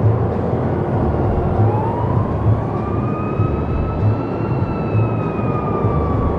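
Layered city ambience: a steady noisy rumble with low thuds about once a second, and one long siren-like tone that rises in pitch over a few seconds, then slowly falls.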